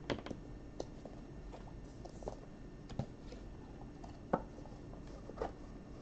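A handful of faint, irregular clicks and light taps, the sharpest about four and a half seconds in, over a low steady room hum.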